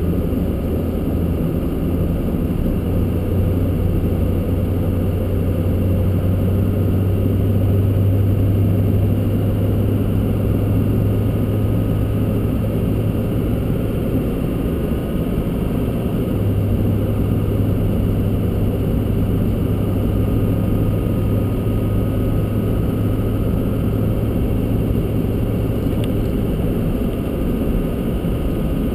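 Car driving along a snow-covered road: steady engine hum with tyre and road noise, the hum shifting slightly about halfway through.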